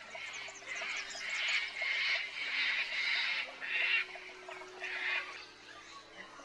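Wild birds calling in a run of harsh, raspy bursts, about one every half second to second, dying away near the end.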